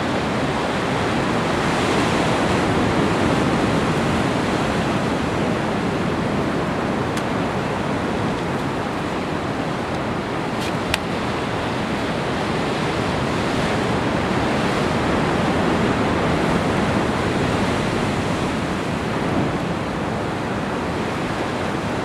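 Steady rushing of ocean surf breaking on rocks, with a short sharp tick about eleven seconds in.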